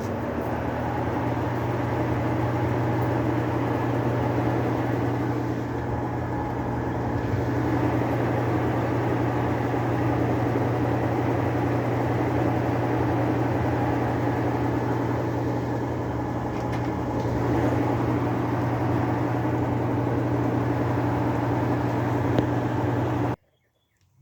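Maytag top-load washer in a spin test: motor and basket spinning steadily with a strong low hum. It stops abruptly near the end.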